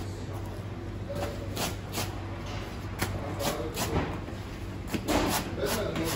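Bakery work noise: irregular light knocks and taps of bread being handled and brushed, over a steady low hum.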